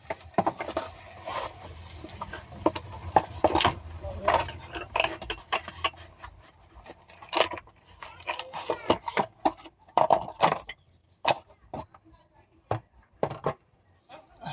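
Irregular metallic clinks and knocks of hand tools and parts being handled during the rear shock absorber job, some sharp and loud, with voices mixed in.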